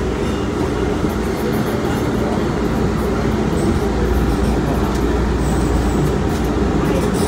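MBTA Green Line light rail train running through the subway tunnel, heard from inside the car: a steady low rumble of wheels on rail and traction motors.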